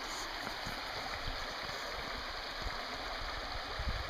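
Steady rushing of flowing river water, with a few low bumps near the end.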